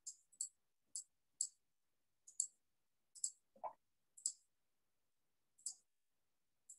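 Computer mouse clicking: about ten faint, sharp clicks, irregularly spaced half a second to a second apart, with a brief lower sound about halfway through.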